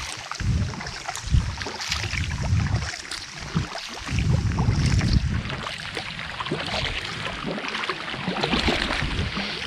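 Canoe being paddled on a lake: water splashing and lapping around the hull, with wind gusting on the microphone in uneven low rumbles.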